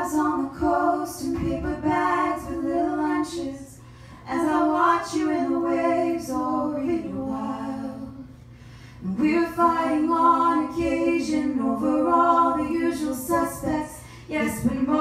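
A woman singing a cappella into a microphone, in sustained phrases a few seconds long with short breaks about four and eight seconds in.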